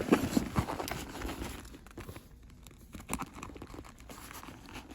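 Irregular clicks and scrapes of a tool working a hammered metal rivet loose from leather, with crinkling as the leather is handled; the rivet is being freed without breaking it so it can be reused.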